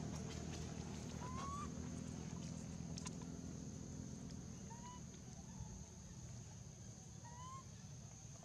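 A baby long-tailed macaque cooing: short whistle-like calls that rise then level off, three of them a few seconds apart, over a steady high-pitched hiss.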